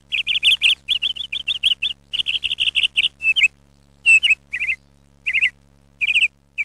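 A bird chirping in quick runs of short high notes, about six a second, then in short separate phrases from about three and a half seconds in, over a steady low hum.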